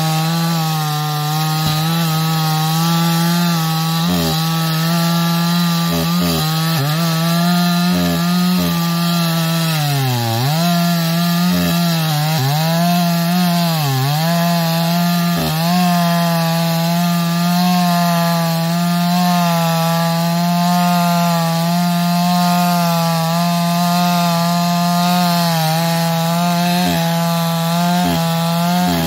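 Petrol chainsaw running steadily under load while cutting through a large log, its engine pitch dipping briefly a few times as the chain bites into the wood, most deeply about ten seconds in.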